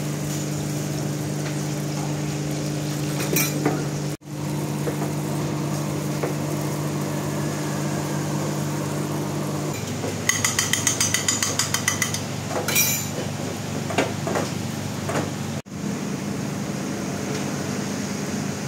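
Omelette being cooked in a frying pan on a gas stove: a steady hum under the sizzle of beaten egg in hot oil. About ten seconds in, a utensil clicks rapidly against the pan for a couple of seconds, followed by a few separate clinks.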